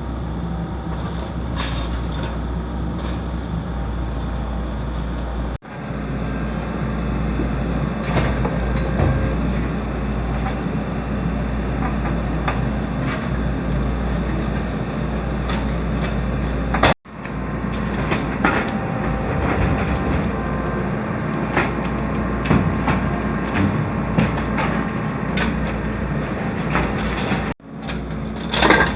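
Hydraulic excavator engine running steadily under scattered knocks and clatter of demolition debris. The sound cuts out abruptly three times.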